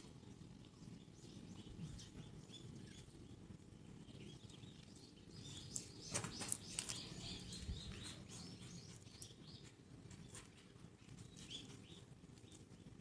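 Faint small sounds from a kitten, with a quick cluster of sharp bursts about six seconds in, the loudest moment.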